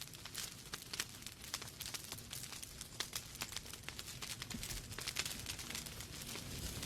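Wood fire crackling in a fireplace: irregular sharp pops and snaps from the burning logs over a steady low rush of flame.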